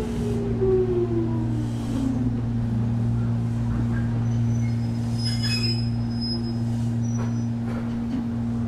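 Jōmō Electric Railway 700-series electric train (ex-Keiō 3000 series), heard from inside the car, slowing for a station stop. The motor whine falls steadily in pitch over the first two seconds or so and fades out, over a steady low hum. A faint high brake squeal comes about halfway through.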